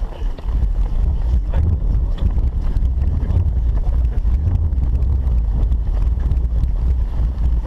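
Wind buffeting a body-worn camera's microphone while its wearer runs: a loud low rumble that swells and dips unevenly.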